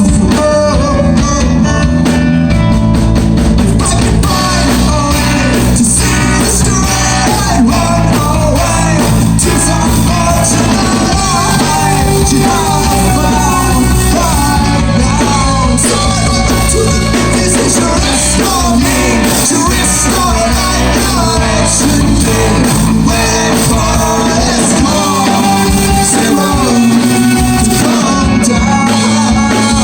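A rock band playing at a steady loud level, with a sung melody over guitar and a bass line.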